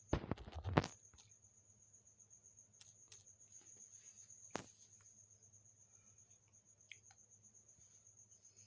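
A quick rattle of clicks and knocks in the first second, then one sharp click about four and a half seconds in and a few faint ticks later, over a steady high-pitched whine.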